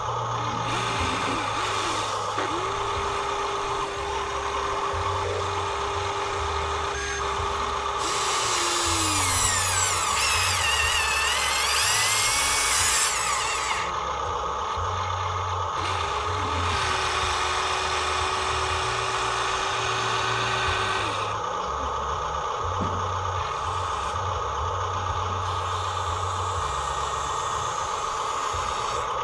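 Electric motors and geared drives of radio-controlled toy construction machines whining as they work, one held whine running for several seconds at a time, with rising and falling higher whines about a third of the way through.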